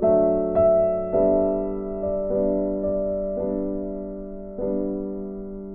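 Background piano music: gentle notes and chords struck every half second to a second, each left to ring and fade.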